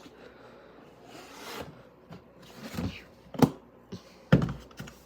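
Handling noise from a plastic dishwasher-pod tub: a soft rustle, then a couple of sharp clicks and a dull thud near the end as the tub is closed and set down.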